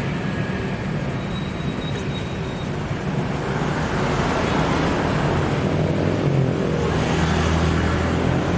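Road traffic: vehicle engines running steadily under a wash of street noise, with one engine's low rumble growing louder near the end as a vehicle draws close.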